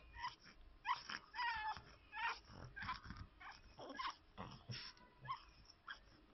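A 15-day-old pug puppy crying: a string of short, high, squeaky cries that bend in pitch, roughly two a second.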